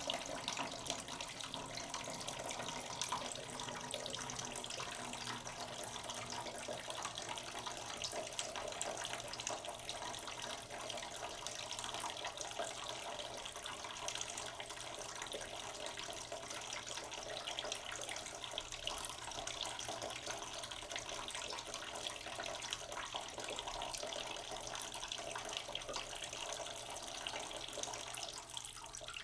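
Tap water running in a thin stream into a cooking pot in a sink, splashing and gurgling as the pot slowly fills. The stream stops near the end.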